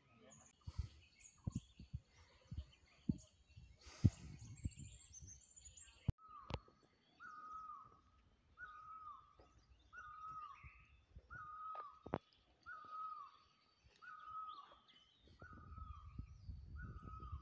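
Birds calling in woodland. For the first few seconds there are thin high chirps and scattered soft knocks. From about six seconds in, a bird repeats one short down-slurred note about nine times, evenly spaced a little over a second apart.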